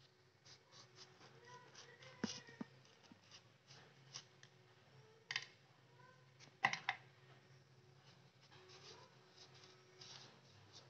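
Steel kitchen knife slicing through segments of a vadukapuli lime, with soft scraping and a few sharp clicks of the blade, the loudest about two, five and six and a half seconds in.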